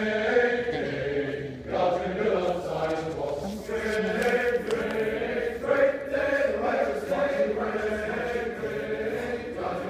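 A group of people singing together in long held phrases, with brief breaths between lines about one and a half and three and a half seconds in.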